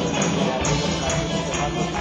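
Traditional Greek folk dance music playing, with a steady percussive beat.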